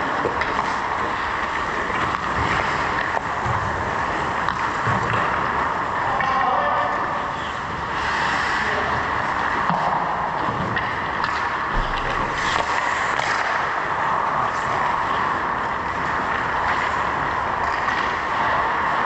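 Indoor ice hockey rink during play: a steady hiss of arena noise with faint scattered clicks and knocks from skates and sticks on the ice, echoing in the rink.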